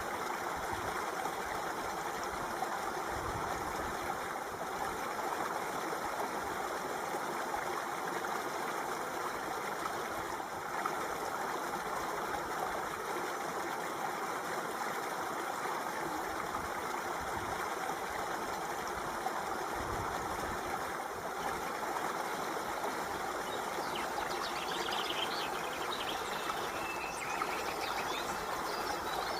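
Running water flowing steadily. Birds chirp over it in the last few seconds.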